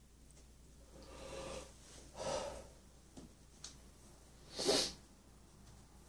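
Three short breathy puffs of air, the last and loudest about three-quarters of the way in, with two faint clicks in between.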